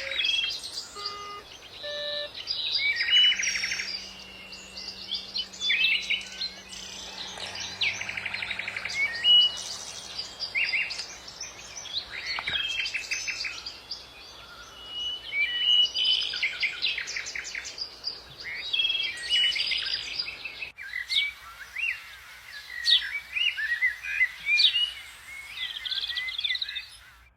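Several songbirds singing and chirping together, with quick trills and fast runs of repeated high notes. The low background noise drops away abruptly about two-thirds of the way through while the birdsong carries on.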